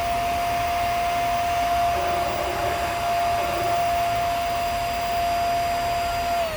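Hoover Air Steerable upright vacuum's motor running steadily with a high whine, then switched off about six seconds in, the whine falling as the motor spins down. This is a test run after clogged filters were dealt with; it sounds better but still not that great, and the uploader puts that down to a bad motor bearing.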